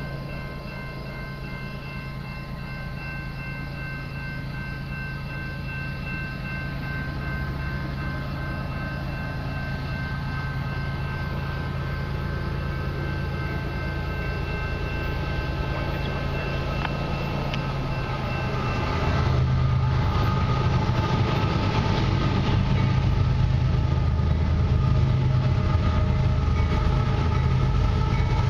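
Eastbound Canadian Pacific freight train approaching behind GE diesel locomotives. The engine rumble builds steadily and becomes much louder about two-thirds through as the lead units draw near. A steady high chord sounds through the first part and stops a little past the middle.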